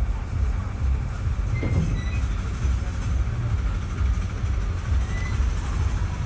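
Passenger train rolling along, heard from an open window of one of its coaches: a steady rumble of wheels on track, with wind buffeting the microphone.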